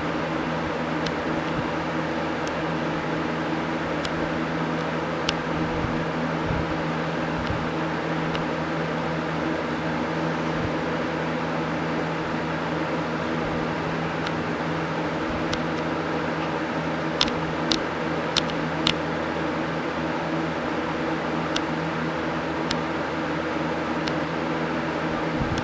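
Steady mechanical hum with a low drone and hiss, like a running fan or similar appliance. A few faint sharp clicks come through it, four about half a second apart roughly two-thirds of the way in.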